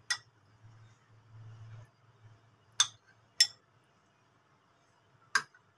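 A steel spoon clinking against a glass of iced sherbet four times, short sharp clinks with gaps between, as more gond katira is spooned in.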